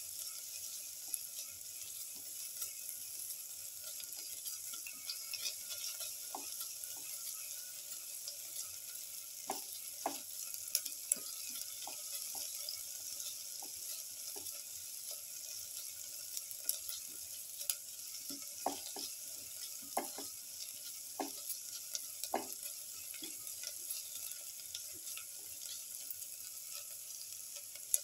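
Sliced onions and shallots sizzling in oil in a pan while a spatula stirs and turns them, with irregular scrapes and taps of the spatula against the pan.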